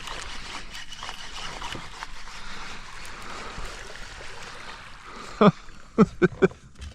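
Water splashing and churning as a hooked largemouth bass fights at the surface beside a kayak. Four short, loud knocks or splashes come in quick succession about five and a half seconds in.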